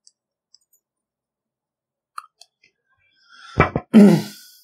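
A few faint ticks of a marker writing on a glass lightboard. About three and a half seconds in comes a man's short, louder vocal noise that is not words, voiced with a breathy hiss.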